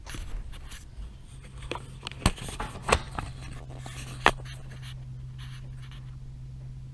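Workbench handling sounds: light scraping and three sharp knocks, the loudest about two, three and four seconds in, over a steady low hum.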